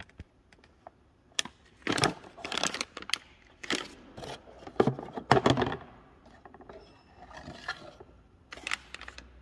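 Plastic packaging crinkling and a cardboard box being handled: a run of short rustles and scrapes, the loudest just past the middle, with a last few near the end.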